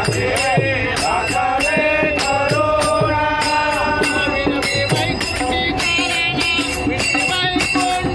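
Men singing a devotional bhajan to a steady beat of hand-clapping and small brass hand cymbals, about two strokes a second, with a hand drum thumping underneath.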